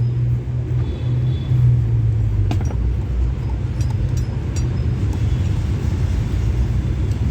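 A steady low rumble like a running engine in the background, with a few sharp metallic clicks from tools as the scooter engine's cooling fan is unbolted.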